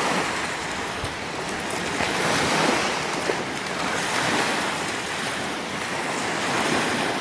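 Small waves breaking and washing up on a sandy lakeshore, a steady rushing that swells and eases gently, with some wind on the microphone.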